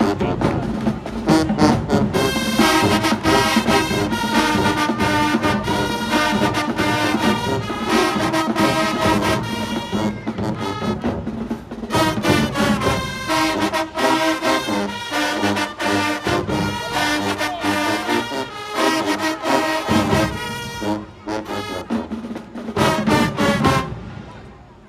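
High school marching band playing, with brass carrying the tune over drumline percussion. The music stops just before the end.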